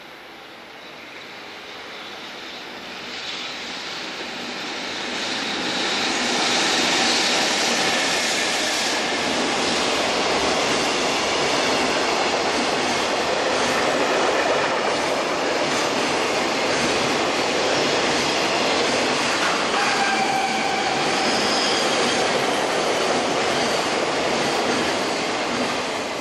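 Electric-hauled freight train of container wagons passing on steel rails: the rumble and clatter of the wheels grow over the first several seconds, then hold steady as the wagons go by, and fade as the last wagon clears. Brief high wheel squeals come through about twenty seconds in.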